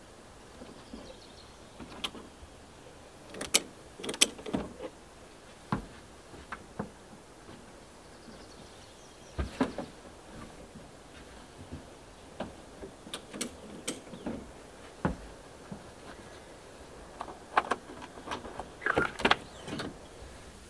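Scattered clicks, knocks and rattles from the latches and hinged side window flaps of a pickup hardtop cabin being unlatched and pushed open from inside, with a busier run of clicks near the end.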